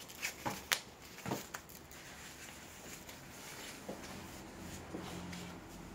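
Soft footsteps on a tatami floor, with several small clicks and knocks in the first second and a half, then quiet room tone with a faint low hum.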